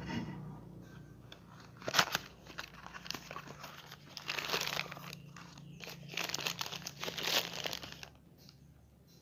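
The cardboard box and plastic wrapping of a new Elofic oil filter being handled, opened and unwrapped. There are several spells of crinkling and rustling, with a sharp snap about two seconds in. It stops about eight seconds in.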